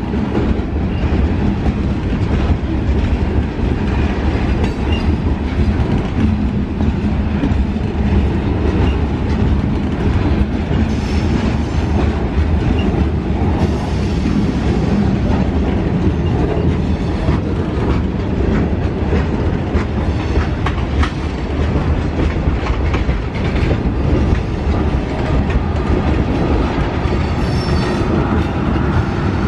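Freight train cars rolling steadily past close by, steel wheels clacking over the rail joints.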